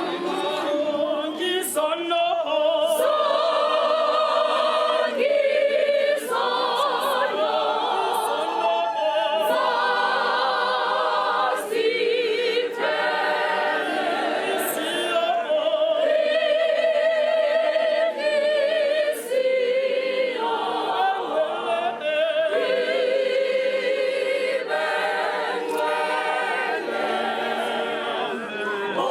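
A choir singing, several voices together with a wavering vibrato, in phrases broken by short pauses.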